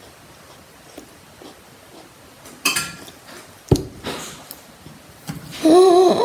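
Small clicks and light clinks in a quiet room, a single sharp thump just past the middle, then near the end a girl's short, wavering vocal exclamation.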